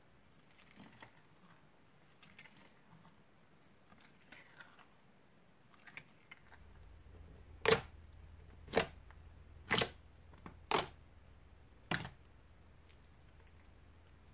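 Fingertips poking into a slab of crunchy slime, making five sharp pops about a second apart. Before them, faint soft squishing as the slime is stirred with a spatula.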